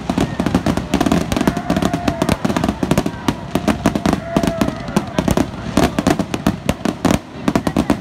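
Aerial fireworks bursting in quick succession, a dense run of sharp pops and bangs with no break.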